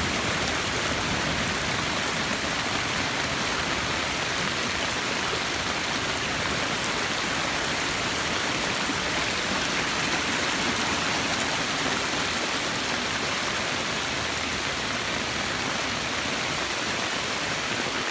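Heavy rain falling steadily together with storm runoff rushing through a rock-lined backyard dry creek bed, which is overwhelmed by the monsoon downpour.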